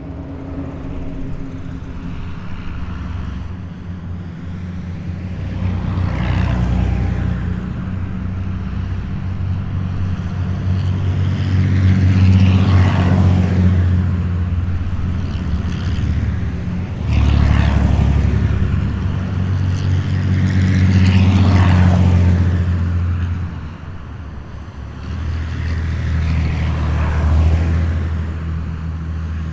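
A column of heavy military vehicles driving past one after another, their engines running with a deep, loud drone. About five passes swell and fade in turn.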